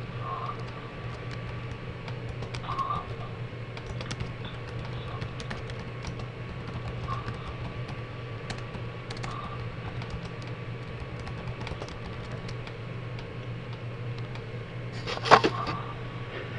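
A man snoring: faint short snores every few seconds and one loud snort about fifteen seconds in. Under it runs a steady low hum, with scattered light clicks.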